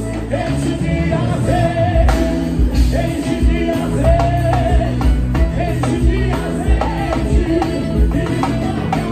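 Live band music with a singer over a steady beat of drums and bass, with electric guitar in the band.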